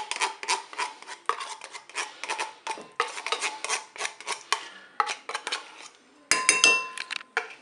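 Metal spoon scraping sweetened condensed milk out of a tin can: a quick run of scrapes and clicks against the tin, with a louder, ringing metal scrape lasting about a second near the end.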